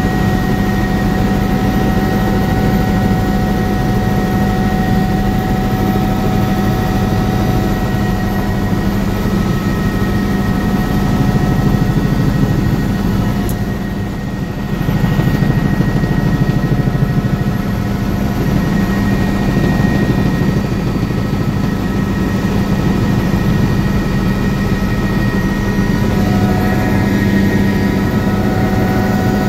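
Helicopter engine and rotors heard from inside the cabin in flight: a loud, steady drone with a strong low hum and several steady high whining tones. It dips briefly about halfway through, then comes back a little louder.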